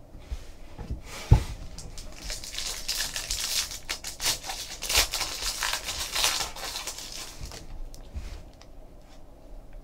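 Foil trading-card pack being torn open and crinkled, with cards slid out of it, and one thump about a second in. The crackling tails off in the last two seconds.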